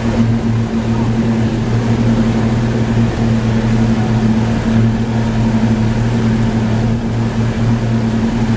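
Glass-bottom tour boat's engine running steadily, a constant low hum over an even hiss.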